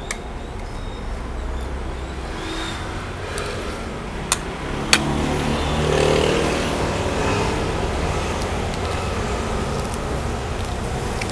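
A motor vehicle's engine going by, swelling about halfway through and then easing off over a steady low rumble. Two sharp clicks come just before it swells.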